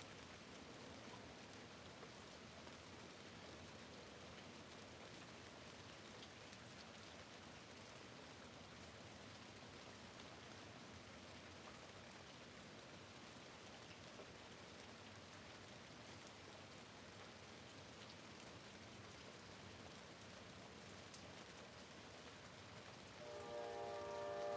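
Faint, steady rain falling at a window: an even hiss with scattered drop ticks. Near the end a held tone of several pitches starts up and sounds over the rain, louder than it.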